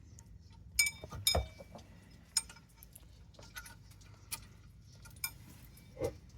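Loose metal parts clinking as they are handled and set down, about seven separate sharp clinks with a brief ring, the loudest two about a second in.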